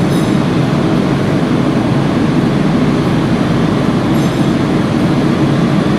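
Steady low rumbling ambience heard from inside an airport terminal through the window glass, with no distinct events, constant in level.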